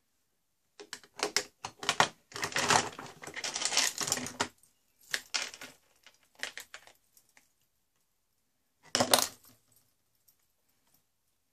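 Small hard objects clinking and rattling as they are handled, in several bursts of clatter with quiet gaps between.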